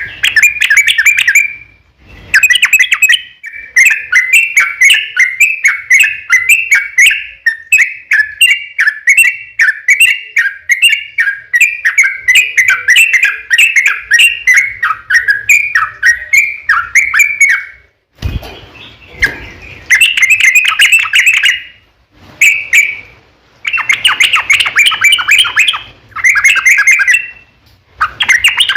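Yellow-vented bulbul (trucukan) singing a long, fast rolling string of chattering notes, then breaking into shorter bursts of song.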